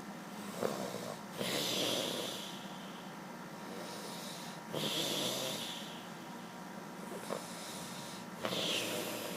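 Snoring: three slow, noisy snoring breaths about three and a half seconds apart, with a short click between them now and then.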